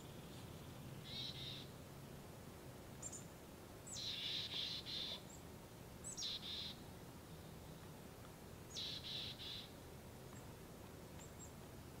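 A small songbird calling in the forest: four short bursts of rapid, high, buzzy notes, some led by a thin, higher falling note, over a faint steady low background hum.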